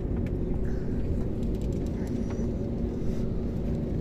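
Airliner cabin noise on the ground before take-off: the jet engines at low power give a steady low rumble with a constant hum, and a few light clicks and rattles come through the cabin.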